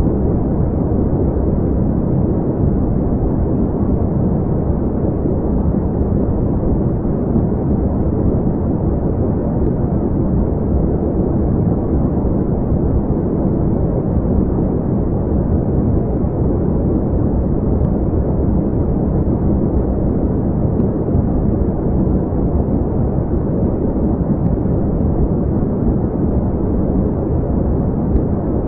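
Steady, deep rumbling noise with no breaks or changes: a synthesized space-ambience drone presented as the sound of the exoplanet CoRoT-3b.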